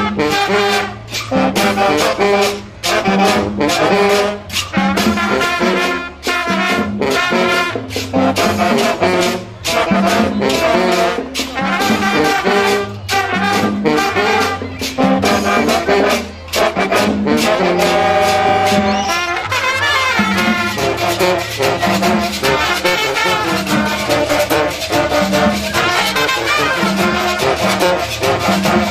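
School marching band playing a brass-led tune: trumpets, trombones, saxophones, clarinets and a sousaphone over drums. Short punchy phrases give way to a held chord about eighteen seconds in, then fuller, continuous playing.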